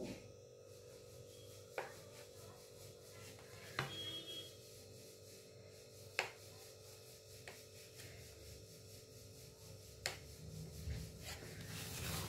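Kitchen knife cutting through a brownie on a plate, the blade clicking against the plate several times, a couple of seconds apart, over a faint steady hum.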